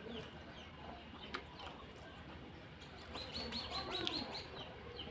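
A bird chirping in a quick run of about eight high notes, starting about three seconds in, with a single sharp click before it.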